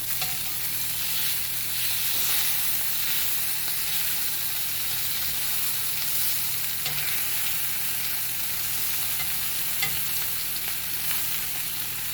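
Boneless, skinless chicken thigh frying in a pan, with a steady sizzle and a couple of light clicks partway through.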